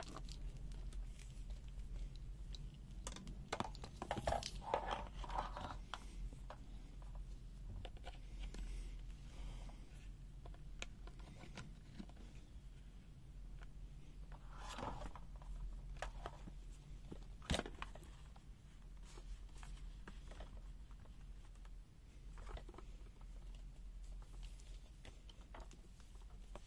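Hands handling a LOMVUM DM6S digital multimeter and its test leads, turning the rotary selector: a few stretches of rustling and scattered sharp clicks, over a steady low hum.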